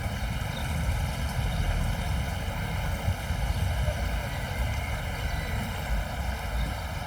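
Wind buffeting the microphone in a fluttering low rumble, over the steady rush of a flowing river.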